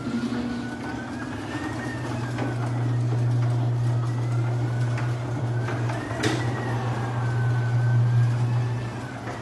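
Garage door opener motor running steadily as the door travels, with a slowly wavering whine over the hum and a few sharp clicks, the loudest about six seconds in.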